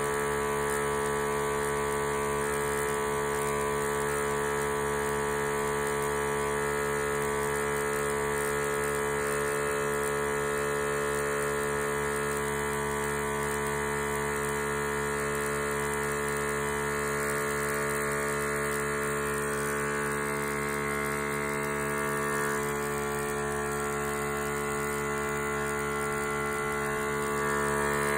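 Krups-made Hopsy SUB home beer tap machine running with a steady, endless grinding hum of many even tones, one mid-pitched drone strongest. The noise is a fault in a month-old unit.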